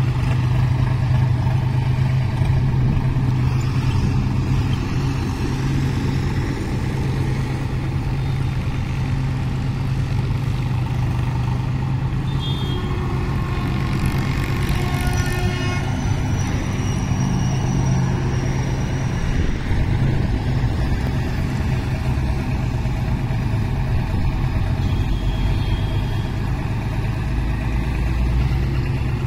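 John Deere 5036D tractor's three-cylinder diesel engine running steadily at idle. A vehicle horn honks for a few seconds about halfway through.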